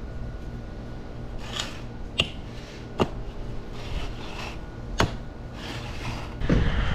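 A long spirit level being set down and shifted on screed rails over bedding sand: three sharp knocks, about two, three and five seconds in, with softer scraping of sand between them over a steady low background noise.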